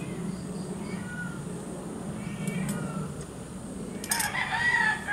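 A drawn-out animal call of about a second and a half comes near the end, starting sharply, over a steady low hum. A few brief high chirps come earlier.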